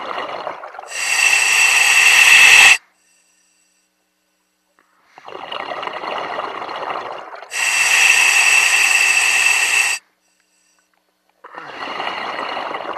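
A diver breathing through a diving regulator: two full breaths, each a softer rush of air followed by a louder, brighter rush, separated by pauses of about two seconds, with a third breath starting near the end.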